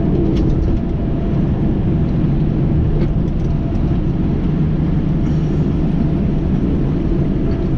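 Semi-truck driving: steady engine and road rumble heard from inside the cab.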